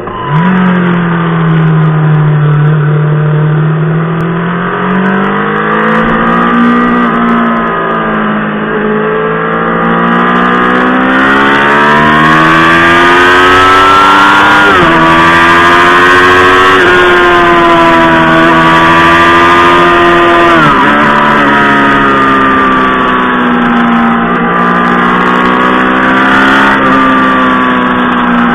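Honda Fireblade inline-four engine pulling hard, recorded on board: the engine note rises and falls steadily with the throttle, and drops sharply in pitch three times in the middle, each time climbing again.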